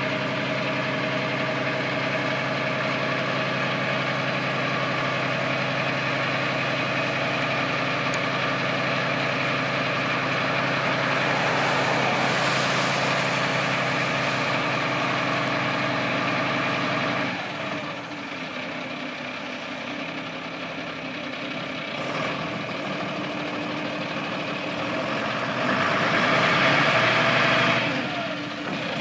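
1988 Mack MS300T cab-over mid-liner's diesel engine idling steadily. About two-thirds of the way in the engine note changes suddenly and drops in level as the truck pulls out, then grows louder near the end as it gets under way.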